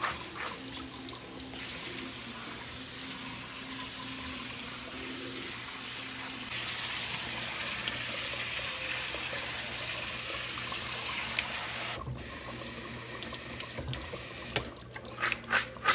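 Kitchen faucet running onto black-eyed peas in a stainless mesh colander, the water splashing through into the sink. The flow gets louder a little under halfway through, and a rhythmic swishing of about two pulses a second starts near the end.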